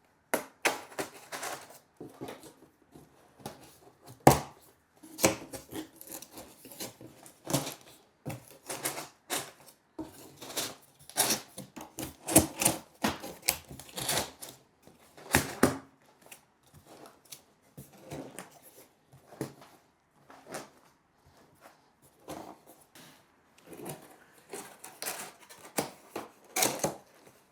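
Stiff corrugated cardboard shelf parts being handled and slotted together: an irregular run of clicks, taps, knocks and short scraping rustles as the panels and tabs are pushed into place. The sharpest knock comes about four seconds in.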